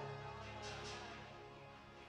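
Quiet music with steady held notes, fading down.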